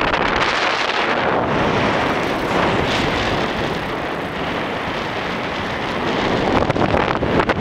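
Wind rushing over the camera microphone from the airflow of paraglider flight: a steady, loud rush of wind noise that turns choppier and gustier near the end.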